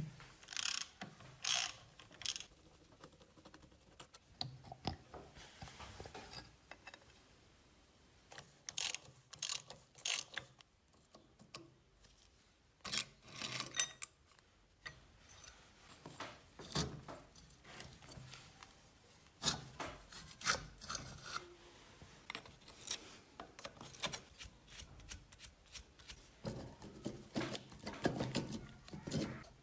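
Irregular clicks, scrapes and short rattles of hand tools working on metal parts, with quick clicking runs that sound like a ratchet.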